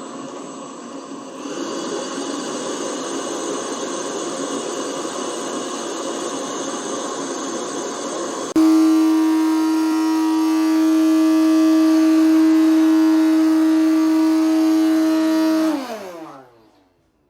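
HONITURE G20 Pro robot vacuum running with a noisy whirr of motor and brushes. About halfway it abruptly changes to a louder, steady whine. Near the end the whine drops in pitch and dies away as the motor winds down and stops.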